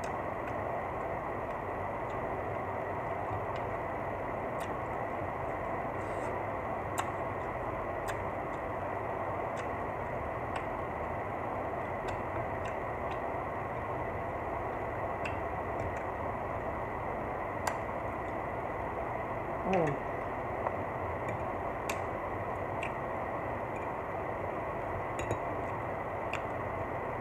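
Eating sounds: scattered light clicks and smacks as food is picked from a glass dish and chewed, over a steady background hum. A short falling tone sounds about twenty seconds in.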